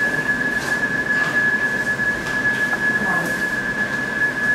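Continuous high-pitched electronic tone from a Philips HeartStart XL defibrillator-monitor, held steady over a hiss of room noise.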